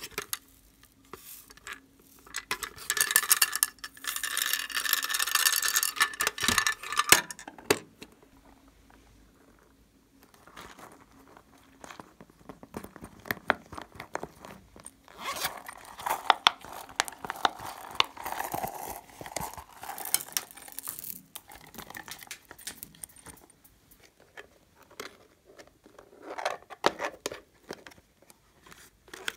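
Small plastic toy cases handled and opened by hand, with clicks, scrapes and rustles of plastic and the rattle of loose square glitter. A long, dense scraping rattle runs from about three to seven seconds in, then quieter scattered clicks and handling noises follow.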